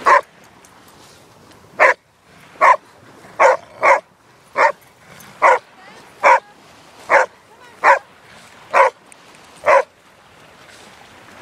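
A dog barking in play: twelve short, sharp barks at a steady pace, a little under a second apart, stopping about ten seconds in.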